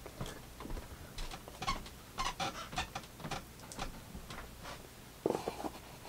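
Cardboard trading cards being handled: soft clicks, taps and slides as cards are dealt onto a pile on the table. A louder scrape comes about five seconds in as a hand goes into the cardboard box of cards.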